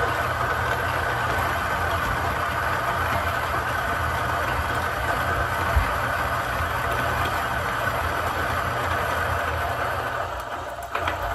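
Niche Zero conical burr coffee grinder running steadily as it grinds a single dose of espresso beans. The grinding eases slightly near the end as the hopper empties.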